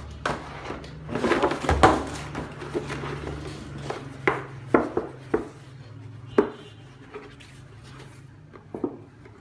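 Stiff black plastic nursery pots (Phước Lộc C12) being pulled apart from a nested stack and handled: a scraping rustle of plastic on plastic about a second in, then a run of sharp plastic knocks and taps.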